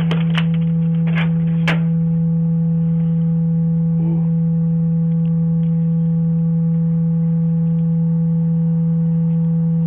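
A loud, steady low-pitched tone that starts suddenly and holds unchanged, with a few clicks in the first two seconds.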